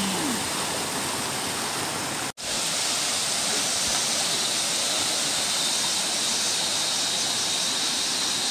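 Steady rush of a rocky mountain stream pouring over stones, broken off for an instant a little over two seconds in, then running on with a slightly brighter hiss.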